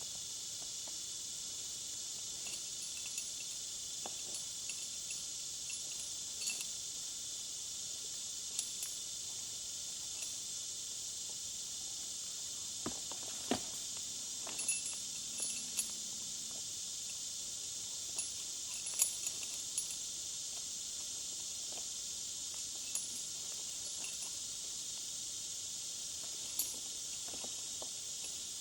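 A steady high-pitched insect chorus throughout, with scattered light clinks and taps, the sharpest a little past the middle.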